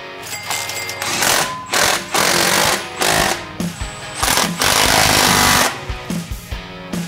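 Cordless impact wrench rattling on a truck's wheel nuts in five short bursts, the last and longest about a second, over background music.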